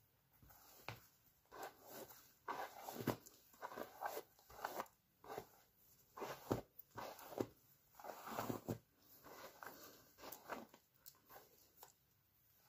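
Long hair being brushed and handled close to the microphone: faint, irregular rustling strokes, busiest in the middle.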